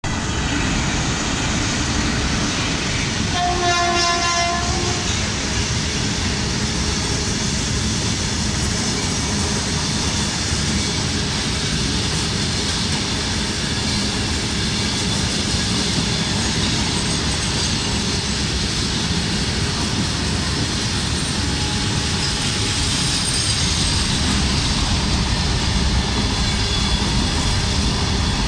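Indian Railways WAG-5 electric locomotive sounding its horn once, about three and a half seconds in, for about a second and a half. Throughout, a long train of covered goods wagons rolls past with the steady noise of wheels on rails.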